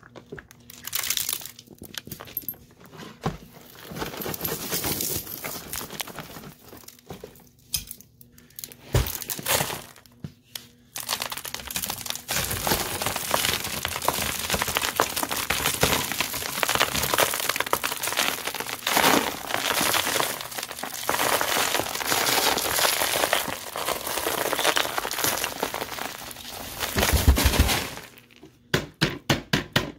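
Crunching and crackling of a heap of dry dirt, lint, confetti and small plastic gems being worked, with gritty clicks. It comes in short bouts at first and turns into a dense, continuous crunch about twelve seconds in. There is a low thud shortly before the end, followed by a few separate clicks.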